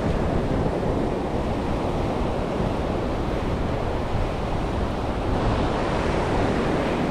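Ocean surf breaking and washing up a sandy beach, with wind buffeting the microphone as a steady low rumble. The wash grows brighter and hissier about five and a half seconds in.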